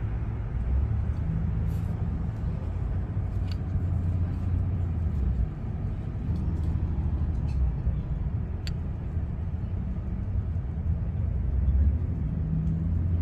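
Steady low outdoor rumble, with a few light clicks of small parts being handled.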